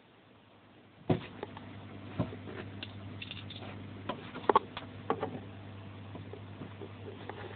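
A steady low hum, likely from aquarium equipment such as a filter, begins about a second in. Over it come irregular light clicks and taps, the sharpest about a second in and again near the middle.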